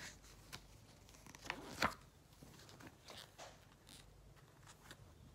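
Faint rustles and taps of a thin paperback picture book being handled and its pages turned, a few short separate sounds with the sharpest a little under two seconds in.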